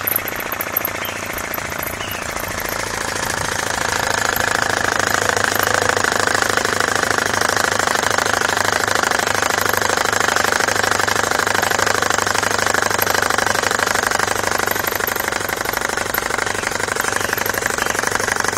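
Homemade belt-driven piston air compressor running and pumping up its small tank, a loud, steady, rapid pulsing that swells a little over the first few seconds and then holds even.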